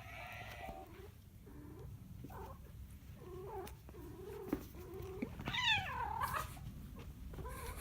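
Domestic cat giving a run of short, low calls, then one louder, drawn-out meow about five and a half seconds in.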